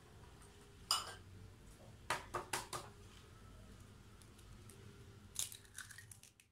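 Eggshell cracked against a ceramic bowl: sharp taps, a quick run of three about two seconds in, then a brief crackle of shell as it is pulled open near the end.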